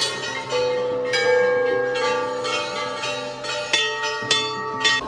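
Brass temple bells struck again and again, their long ringing tones overlapping; several sharp strikes come close together near the end.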